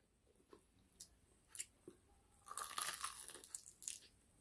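Biting and chewing crispy fried chicken. A few separate crisp crunches come first, then denser crunching from about halfway through.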